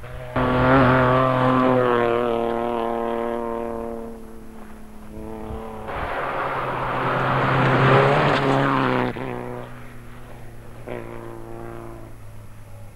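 Rally car engines at high revs on a gravel stage. One car's engine is loud and then fades as it pulls away. A second car comes in loud, its engine mixed with a rough hiss of tyres on gravel, cuts off suddenly about nine seconds in, and a fainter engine note follows.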